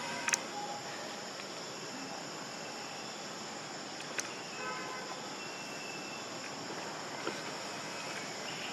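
Steady high-pitched insect drone, with two brief sharp clicks: one just after the start and one about four seconds in.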